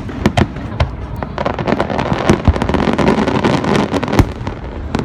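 Aerial fireworks bursting in quick succession, a string of sharp bangs with a dense run of crackling through the middle.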